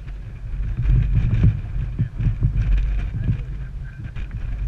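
Gusting wind buffeting the camera microphone over the low, steady running of a side-by-side UTV's engine at idle.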